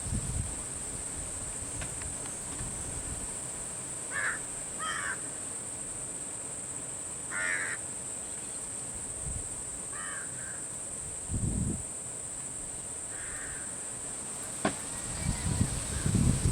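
Crows cawing five times, spread out singly and in a pair, over a steady high-pitched insect drone. Two low rumbling bursts come near the end.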